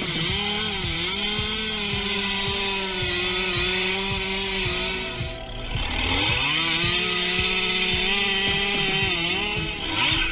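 An engine running at high revs under load, its pitch dipping briefly, sagging away about halfway through and then climbing back up. Background music plays underneath.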